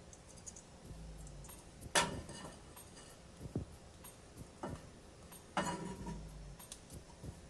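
A metal frying pan knocking against the cast grate of a gas stove as it is tilted to swirl the oil: two sharp clanks, about two seconds in and again near six seconds, with a few lighter clicks between.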